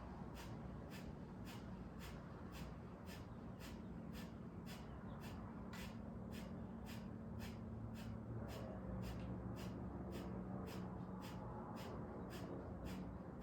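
A person doing breath of fire, the kundalini pranayama: short, forceful exhales through the nose at a steady pace of about two a second, each with a quick passive inhale. A low steady hum runs underneath.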